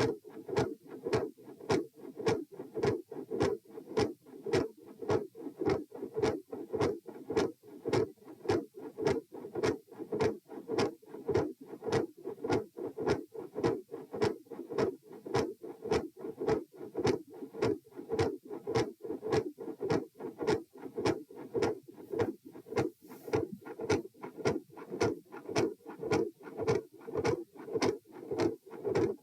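Human heart sounds picked up through a stethoscope: a steady rhythm of short lub-dub knocks, with a continuous low rushing sound between the beats. The recordist describes split first and second heart sounds and several murmurs in this recording.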